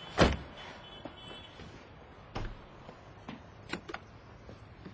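A single sharp knock or thump just after the start, followed by a few faint clicks and taps over quiet room tone.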